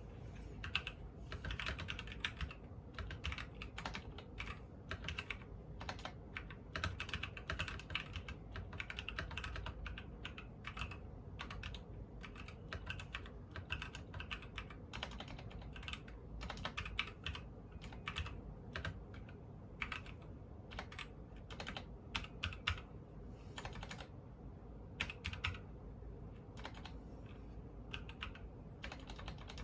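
Continuous typing on a custom mechanical keyboard with SP-Star x Kon MOMO switches on an aluminum plate in a KBD low-profile case. The keystrokes come as a steady, irregular patter of clicks, with a few louder strikes here and there.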